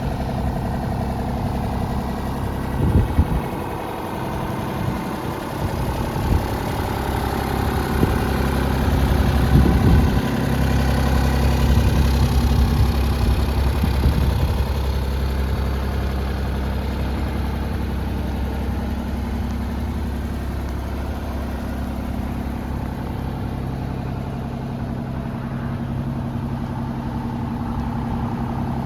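Kubota U35 compact excavator's diesel engine running steadily, with a few sharp knocks about three and ten seconds in and the engine a little louder for several seconds after the second.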